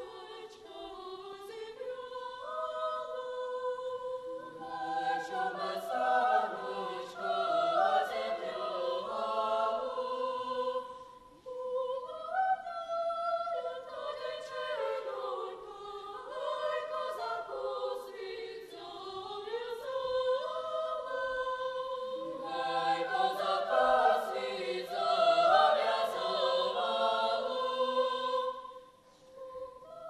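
Children's choir singing in several parts, in phrases, with a short break for breath about eleven seconds in and another near the end.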